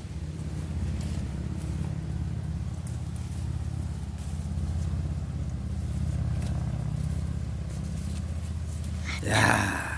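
A steady low motor hum, like an engine idling, runs throughout, with a few faint clicks. Near the end a woman gives a short, loud exclamation.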